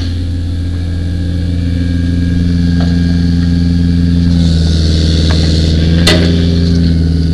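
Fire truck's engine running steadily close by, its pitch shifting slightly about halfway through, with a hiss and then one sharp metallic click about six seconds in.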